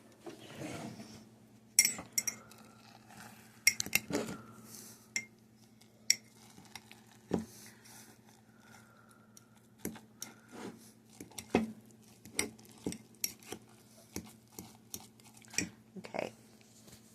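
Metal utensil clinking, tapping and scraping against a ceramic egg cooker and dishes, a string of separate sharp clinks that come about once a second toward the end.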